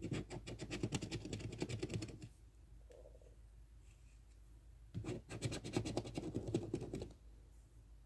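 Scratch-off lottery ticket being scratched with the edge of a round coin-style scratcher token: two bursts of rapid back-and-forth scraping, each about two seconds long, with a pause of a few seconds between them.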